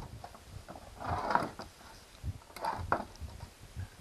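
Separated outboard powerhead casting handled and turned over on a workbench: a few short metal scrapes and clunks.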